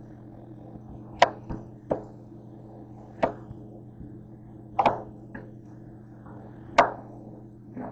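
Chef's knife slicing through cantaloupe and knocking on the cutting board, a sharp chop every second or so, six or seven in all.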